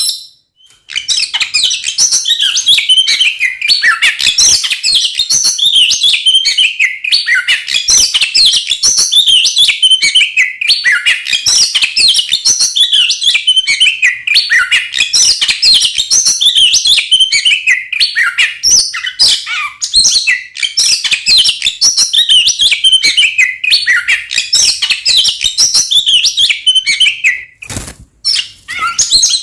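Oriental magpie-robin (kacer) singing loudly in an excited, fighting-mood song: a rapid, nearly unbroken stream of varied chirps and whistles, pausing briefly just after the start and again near the end.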